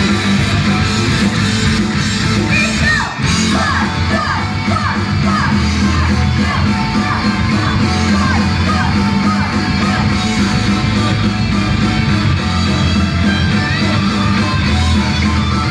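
Loud rock-style idol song played live in a hall, with guitar, drums and singing or shouted vocals; the sound breaks off for an instant about three seconds in.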